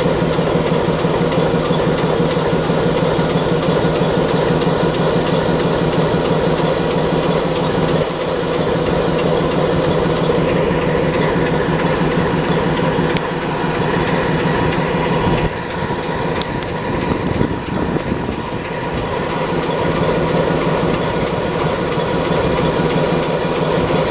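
Diesel engine of an NSWGR 48 class Alco diesel-electric locomotive idling, with a steady, fast, even throb.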